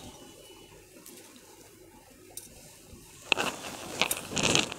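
Rustling and swishing of a sheer silk saree being unfolded and handled: faint at first, then a run of louder rustles from about three seconds in.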